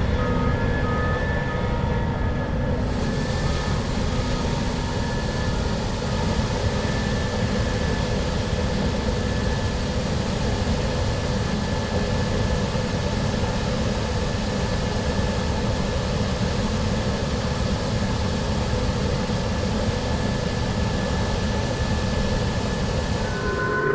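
Case IH combine harvester running steadily under load, a dense low mechanical rumble with faint steady whines above it. A short electronic beep repeats over the first few seconds, then stops.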